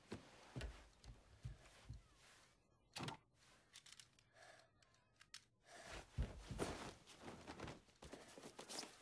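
Near silence, broken by faint scattered clicks and soft knocks, one sharper knock about three seconds in, and a busier run of small sounds in the last few seconds.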